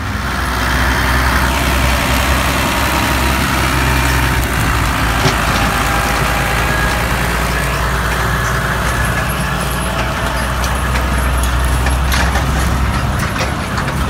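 A New Holland tractor's diesel engine running steadily as the tractor drives close by towing gravity wagons, with light clatter from about nine seconds in.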